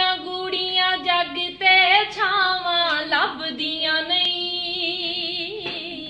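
A woman singing the slow opening of a Punjabi song in long, held notes that bend between pitches and waver near the end.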